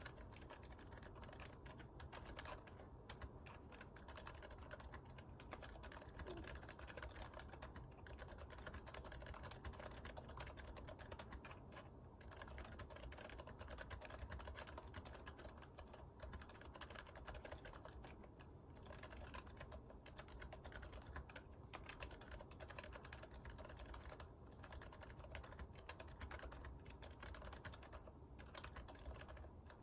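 Typing on a GMMK Pro mechanical keyboard fitted with Gazzew Boba U4 silent tactile switches: a continuous stream of quiet, muted keystrokes.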